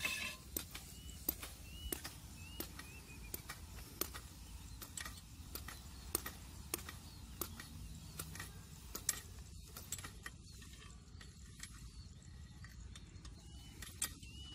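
Metal hose reel turning as the sprayer hose is pulled off it, giving a faint regular click about every half second.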